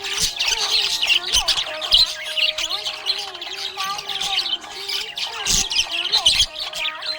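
Budgerigars chattering, a dense, unbroken run of rapid high chirps and squawks, with a lower wavering tone running under them.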